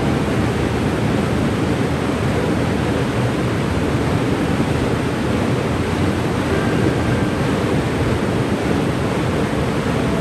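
Waterfall of Cane River Falls, a steady, even rush of falling water.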